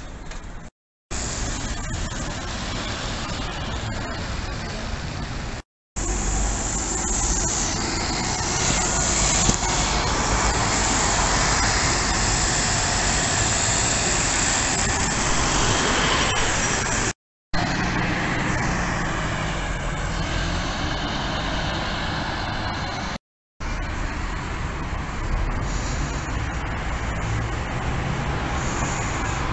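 Road traffic: motor vehicles running and passing, in several short stretches that cut to silence for a moment four times.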